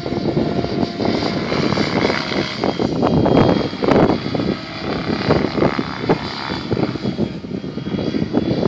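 GAUI X7 electric RC helicopter flying at a distance, its rotor and motor giving a faint steady whine. Irregular gusts of wind on the microphone are louder than the helicopter throughout.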